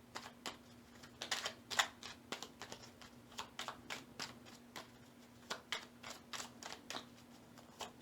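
A tarot deck being shuffled by hand: irregular quick clicks and slaps of the cards against each other. A faint steady hum runs underneath.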